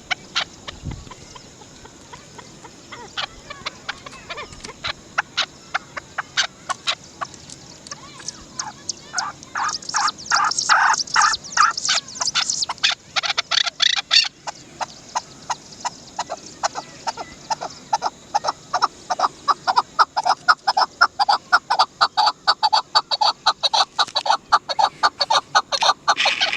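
Chukar partridge calling: a series of sharp clucking notes, spaced out at first, then quickening into long rapid runs, loudest about ten seconds in and again through the last third.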